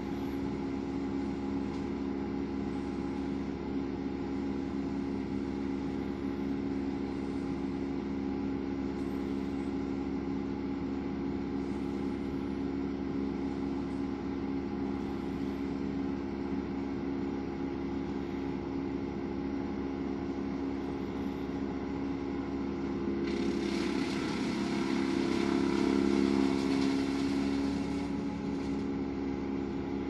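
A tree crew's wood chipper engine running steadily, heard muffled through window glass. About 23 seconds in, a harsher, louder grinding noise starts suddenly and lasts about five seconds while the engine note wavers under load, then it settles back to the steady run.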